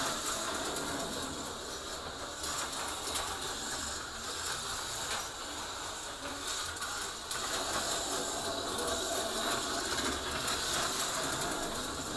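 HO-scale slot cars running laps on a plastic track: a continuous whirring, rattling buzz from the small electric motors and gears, rising and falling gently as the cars go round.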